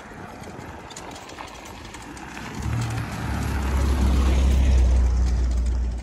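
UAZ van driving past on a dirt road: its engine hum and tyre noise swell from about two and a half seconds in, are loudest around four to five seconds, and start to fade near the end.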